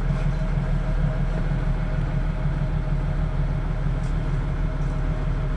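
Motorboat engine running steadily at low speed, a constant low drone.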